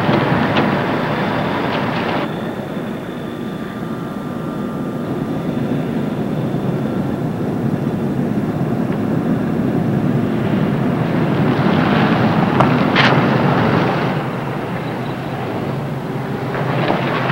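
Steady engine rumble that swells louder past the middle and then eases off, with a few sharp clicks near the start and again near the end.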